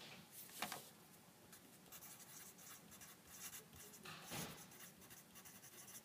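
Faint scratching of a pen writing words on paper, in short uneven strokes.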